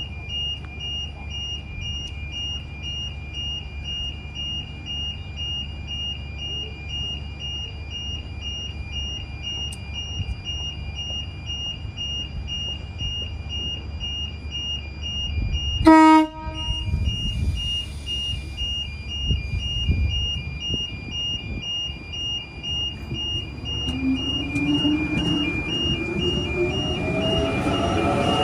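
Sydney Trains A-set (Waratah) electric train departing: one short toot of its horn about halfway through, then a rising whine from its traction motors as it accelerates past in the last few seconds. Underneath, an electronic warning signal beeps steadily, alternating between two high tones.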